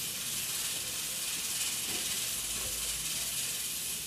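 Steady high hiss of steam from a pressure cooker at pressure.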